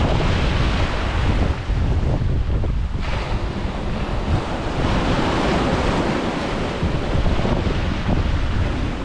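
Ocean surf washing onto a beach, with a wave surging in about halfway through, and wind buffeting the microphone with a low rumble.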